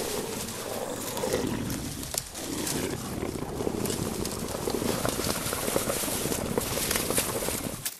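Rapid crunching of dry leaf litter under running feet, with a low, rough growl rising and falling beneath it.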